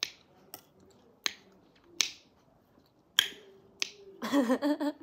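Wet licking and lip-smacking on a stainless steel plate as it is licked clean: six sharp smacks about half a second to a second apart. A short vocal sound follows near the end.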